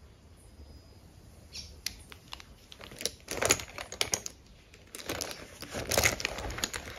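A hand rummaging in a holographic cosmetic bag, with makeup brush handles clicking and knocking together and the bag rustling. It comes in irregular bursts of clicks and rustles starting about two seconds in, loudest in two spells near the middle and toward the end.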